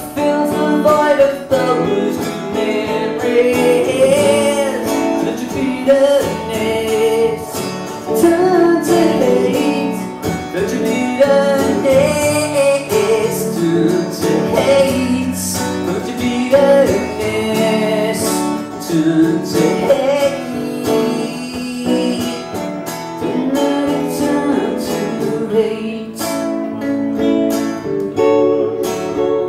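Instrumental break played live on acoustic guitar and hollow-body electric guitar: strummed acoustic chords under a moving melodic lead line.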